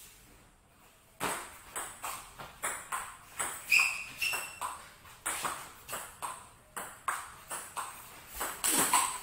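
Table tennis rally: the ball clicking back and forth off the paddles and the table, two to three hits a second, starting about a second in, with a louder hit near the end.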